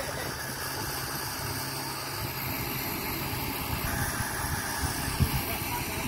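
Off-road 4x4's engine idling steadily.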